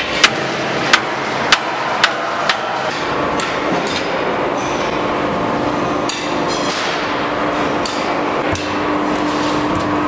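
A heavy drop weight strikes a dished boron steel disc blade in an impact test with one sharp, ringing metal clang, then bounces four more times, each hit quicker and fainter. Steady factory machinery noise with a low hum continues afterwards.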